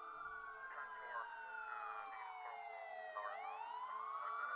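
Emergency vehicle siren wailing. Its pitch slides slowly down for about three seconds, then sweeps back up near the end.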